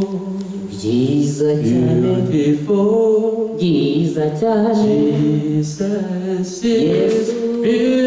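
Two men singing a worship song unaccompanied into microphones, in long held notes.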